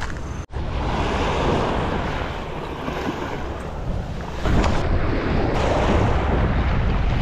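Sea waves washing against shore rocks, with wind buffeting the microphone. The surf swells louder about four and a half seconds in.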